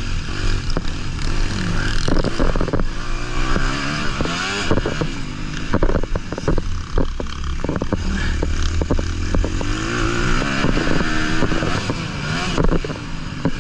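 Honda 250 motocross bike's engine heard onboard, revving up and falling back again and again as the rider accelerates and shuts off through the track's corners and jumps, with clattering knocks from the bike over the bumps and wind on the microphone.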